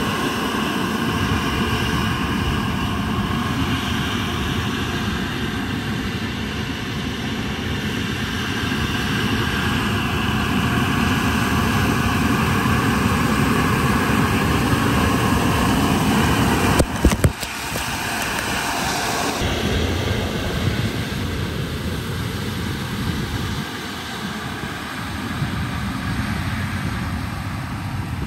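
Electrically driven LB7000E leaf blower mounted on an AllTrec 8015F tool carrier, its fan running steadily and blasting air and leaves with a continuous rushing noise. A few sharp clicks come about two-thirds of the way in, after which the sound is somewhat softer and less hissy.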